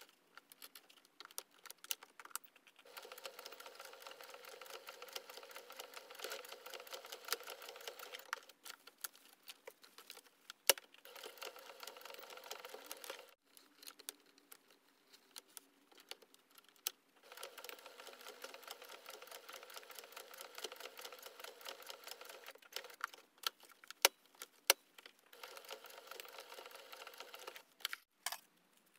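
Domestic electric sewing machine stitching in several runs of a few seconds each, stopping briefly between them while the fabric is turned. A few sharp clicks fall in the pauses.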